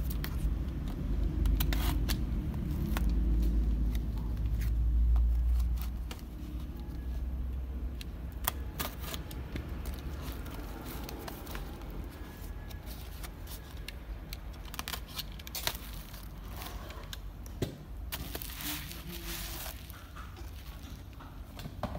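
Shipping parcel being torn open by hand: scattered tearing and scraping of paper wrapping and tape with sharp clicks, over a low rumble of handling noise in the first few seconds. Bubble wrap crinkles near the end.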